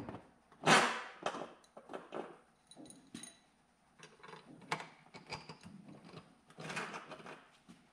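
Bolts and hinge hardware being handled on the door, clinking and rattling in irregular bursts, with a louder clatter about a second in.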